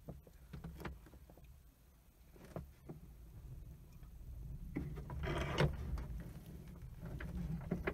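Low steady engine rumble of the tow plane taking up the slack in the tow cable, heard muffled through a glider's closed canopy, with faint clicks and creaks from the cockpit. The rumble grows a little louder about five seconds in.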